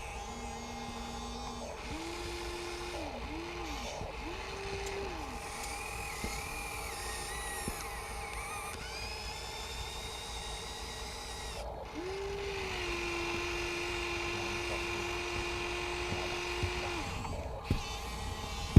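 Small electric motors of a radio-controlled excavator whining in short spurts that rise, hold and drop in pitch, then one longer steady whine of about five seconds in the second half, over a constant low hum.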